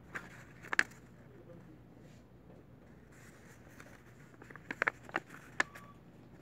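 Handling noise from a small paper cube being turned in the fingers on a table: a few sharp clicks and taps, one near the start and a cluster a little before the end. A short faint tone follows the last click.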